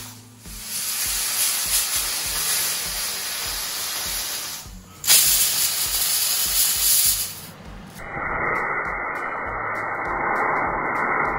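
Aluminium pressure cooker whistling on the gas stove: steam hissing out as the weight valve lifts. There are three whistles in a row with short breaks between them, the middle one the loudest. The cooker is at full pressure, counting down the five whistles for the dal and rice.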